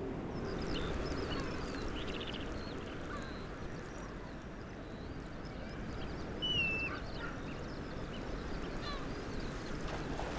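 Wild birds calling over the steady rush of a river: many short, high chirps and squeals, with one clearer falling whistle a little past the middle.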